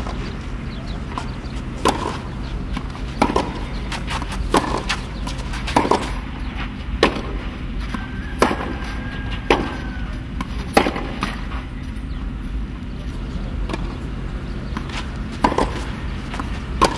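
Tennis ball struck again and again by rackets in a rally: a sharp hit about every second and a half, with a pause of a few seconds after about eleven seconds in, over a steady low hum.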